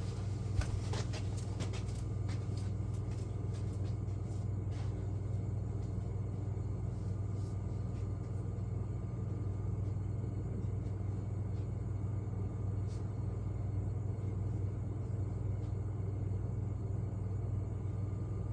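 Champion 4,000-watt generator's single-cylinder engine running steadily on carb cleaner sprayed into the intake, with a few short clicks in the first seconds. It runs on the cleaner but not on its own fuel: it has spark, and the fault lies in the carburetor.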